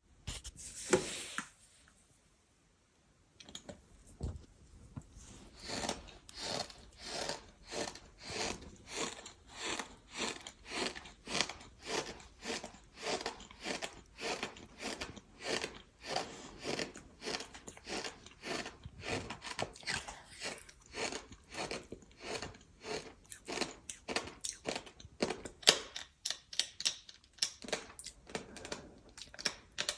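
Close-miked chewing of something gritty, with squeaky, crunchy bites. One loud crunch comes about a second in and then a short pause. After that the chewing keeps a steady rhythm of about two chews a second.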